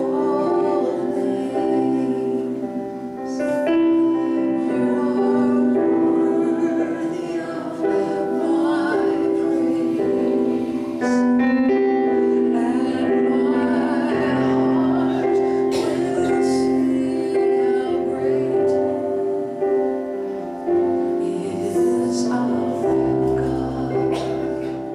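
A woman singing over held chords that she plays on an electronic keyboard, the chords changing every second or two.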